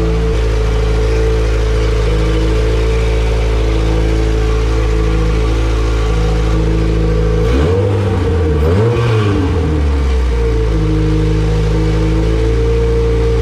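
Honda B18 VTEC four-cylinder engine with an open header, idling, then blipped once about seven seconds in: the pitch rises and falls back to idle over about three seconds. The owner finds it hard to hold an idle because the large cams leave little vacuum at low revs.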